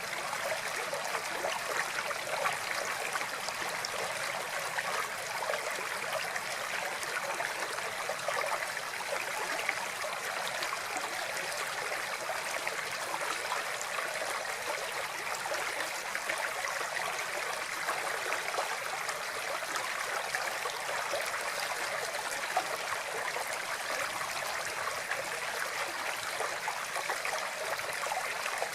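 Water flowing steadily, a continuous babbling rush with fine splashing and no change in strength.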